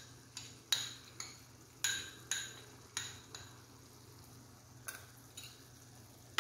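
Steel spoon clinking and scraping against a bowl and the rim of a stainless-steel kadhai as masala paste is scraped into the pan. There are six sharp clinks with a short ring in the first three and a half seconds, then two fainter ones.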